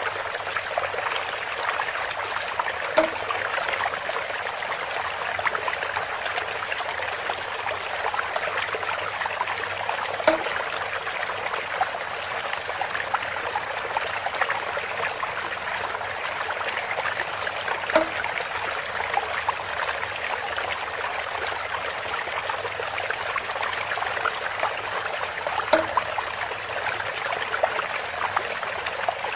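Water trickling and pouring steadily through bamboo, with a short hollow pitched knock about every seven to eight seconds, four times in all.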